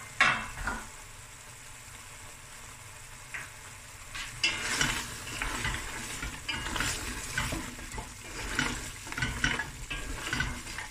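A wooden spoon stirs beef bones and thick gravy in a metal pot, scraping and knocking against the pot over a sizzling simmer. A brief sharp sound comes just at the start, then only the quieter sizzle, and the stirring begins about four seconds in.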